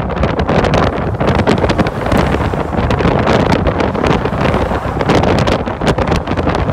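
Wind buffeting the microphone of a phone held out of a moving vehicle's window at highway speed: a loud, steady rush with constant crackling gusts, over the noise of the moving traffic.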